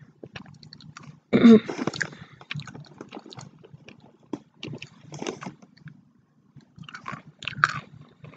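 Close-up chewing with small wet mouth clicks, broken by a short vocal sound about a second and a half in.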